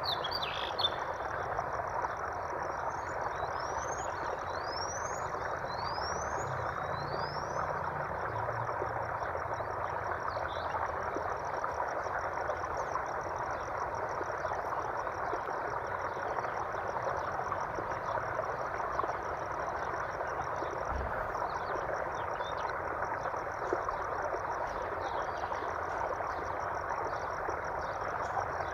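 Running water with a steady rush, under a continuous high trilling chorus of frogs or insects. A bird gives four quick rising whistles a few seconds in, with a few scattered chirps later.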